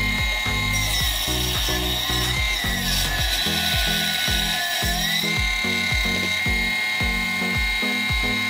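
A mini benchtop table saw's motor whines steadily at high pitch. From about two and a half seconds in, its pitch sags and hiss rises as the blade cuts through a pine block under load, then the whine recovers near the five-second mark. Background music with a steady beat plays under it.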